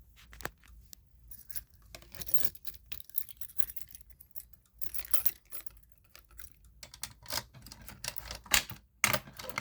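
Irregular clicking, scraping and rattling of small hard objects being handled close to the microphone, in bunches a second or so apart.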